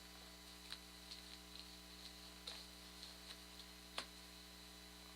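Near silence: a steady low hum with a scattering of faint irregular clicks, the loudest about four seconds in.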